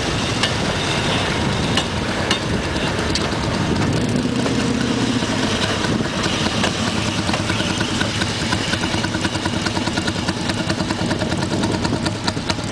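Small engines of several railroad speeders (track motor cars) idling and running steadily as the cars move up slowly on the rails.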